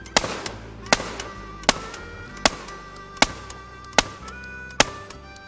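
Protecta 12-gauge revolving-drum shotgun fired in steady succession: seven loud shots, one about every three quarters of a second, over background music.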